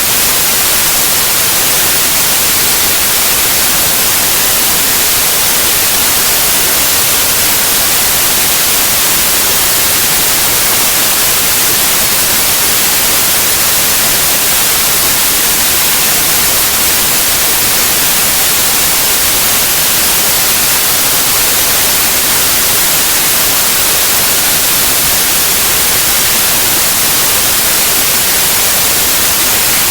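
Steady white noise: an even, unchanging hiss across the whole range of pitch, brightest in the highs.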